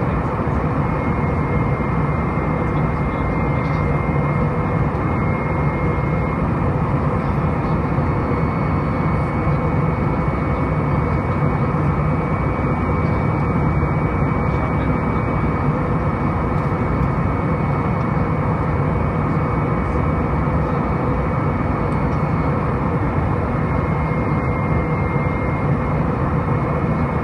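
Steady cabin noise of an Airbus A319 in flight, heard from a window seat beside the wing: the drone of its CFM56 jet engines and rushing airflow, with a thin, steady high whine over a low hum.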